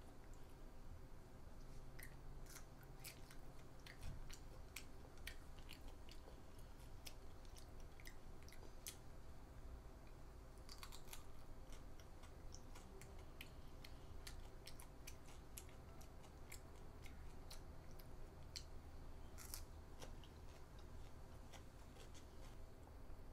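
A child chewing and crunching crisp fresh vegetables such as cucumber and herbs, a scatter of small crisp crunching clicks over a faint low hum.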